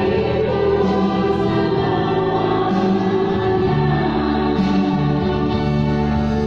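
Choir singing a slow hymn in several parts, holding long sustained chords that change every second or so.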